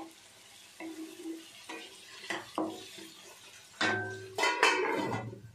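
A few light knocks and scrapes of a wooden spatula in a metal pan, then, about four seconds in, a stainless steel lid clattering and ringing against the pan for about a second.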